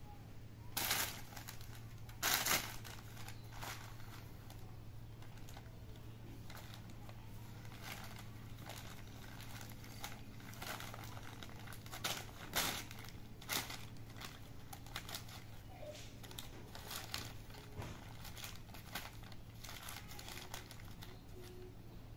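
A sheet of paper crinkling and rustling in irregular bursts as kittens paw at it, burrow under it and tread on it. The loudest crinkles come about a second in, around two and a half seconds, and again around twelve to thirteen seconds.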